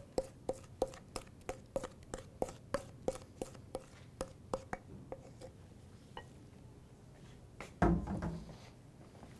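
A kitchen utensil knocking and scraping inside a stainless steel mixing bowl while thick cookie batter is scraped out of it, about three taps a second with a slight metallic ring. The taps thin out about halfway through, and a single heavier knock comes near the end.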